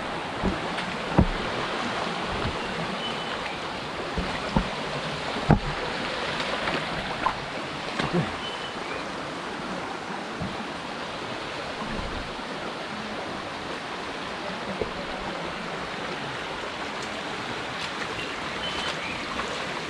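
Steady rushing of water in a rocky hill stream, with a few short sharp knocks in the first half.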